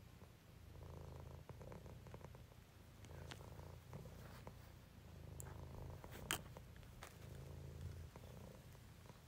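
A domestic cat purring softly, the low purr swelling and easing in repeated stretches with each breath. A brief sharp click about six seconds in.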